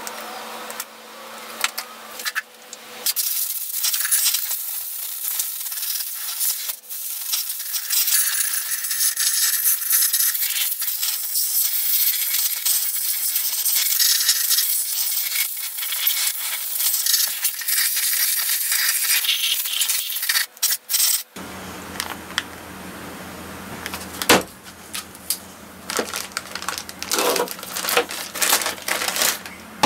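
Compressed air blowing from an air gun into an old belt sander's housing, a loud steady hiss lasting most of the first two-thirds. It then gives way to a steady low machine hum, with plastic bag crinkling near the end.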